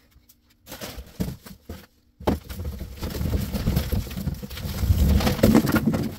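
A large cardboard shipping box being handled and tipped: a few short knocks and rustles, then from about two seconds in a continuous scraping and rustling of cardboard with packing peanuts shifting inside, getting louder toward the end.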